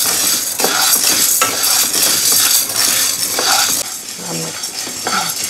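Wooden spatula stirring chana dal being dry-roasted in a non-stick pan with no oil: the dry lentils rattle and scrape across the pan in repeated strokes.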